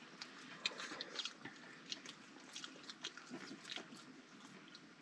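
Faint sounds of soup being eaten: scattered small clicks of spoons and quiet mouth noises.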